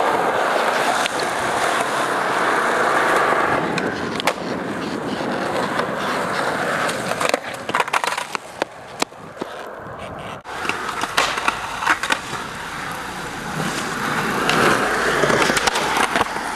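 Skateboard wheels rolling on concrete, a steady grainy rumble broken by sharp clacks of the board's tail and landings, with a short lull about halfway through. Near the end the board scrapes along a ledge in a grind.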